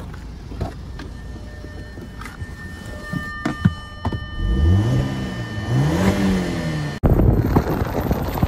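Audi 2.0 TFSI turbo four-cylinder running on gasoline mixed with used motor oil: idling, with a few sharp knocks about three seconds in, then revved up and back down twice. About seven seconds in it cuts suddenly to wind and road noise from a moving vehicle.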